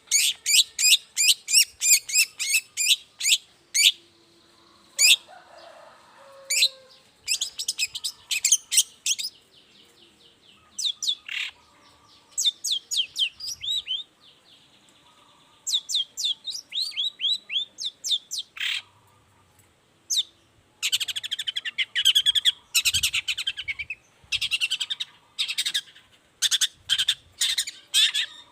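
Long-tailed shrike (cendet) singing in bursts of rapid, sharp repeated notes with short pauses between them. About three-quarters of the way through, a denser, harsher chattering stretch.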